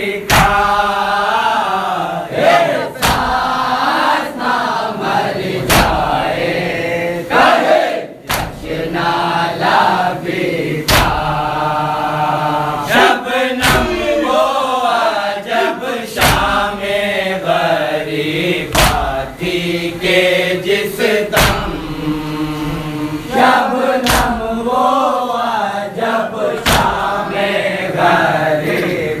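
A man chanting an Urdu noha, a mourning lament, in a strained, sung voice, with other men's voices joining in. Sharp slaps of chest-beating (matam) cut through every couple of seconds.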